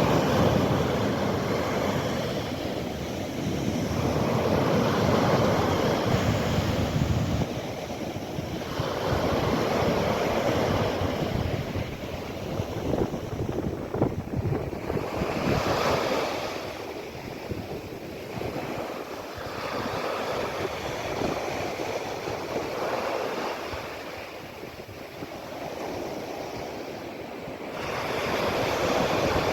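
Mediterranean Sea waves breaking and washing on the shore, surging and ebbing about every four seconds. For the first several seconds, wind buffets the microphone with a low rumble.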